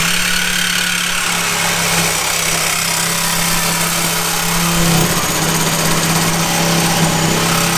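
Reciprocating saw (Sawzall) with a new blade cutting through rusty steel exhaust pipe at the muffler: a steady motor drone with the blade rasping on metal. It starts suddenly and runs without a break.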